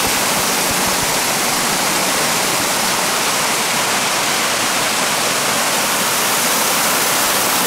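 Water from a garden wall waterfall sheeting down a stone wall and pouring over low weir steps into a pool: a loud, steady rush of falling and churning water.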